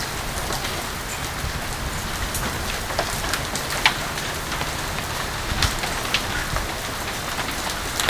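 Hailstorm: rain and hail falling steadily, with scattered sharp clicks of single hailstones striking.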